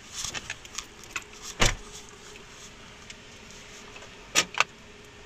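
A scatter of light clicks and knocks, one heavy thump about one and a half seconds in, and two sharp knocks close together near the end. A faint steady hum sets in right after the thump.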